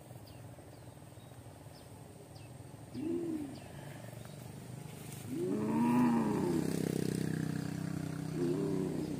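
Tiger-like roars: a short one about three seconds in, a long, loud one in the middle and a short one near the end, each rising and then falling in pitch. A low steady hum comes in about halfway.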